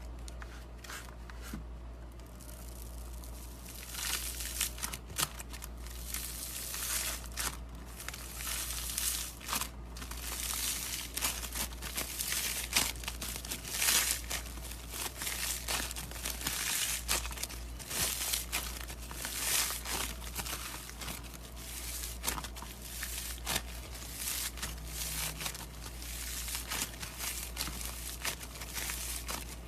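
Slime being squished and worked by hand, giving dense, irregular crackling and crinkling that grows louder and busier about four seconds in, over a steady low hum.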